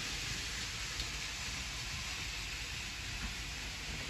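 Steady background hiss, with a faint tick about a second in and another near three seconds.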